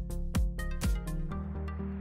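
Electronic background music with a steady beat of about two strikes a second; the beat drops out about halfway through, leaving held synth chords.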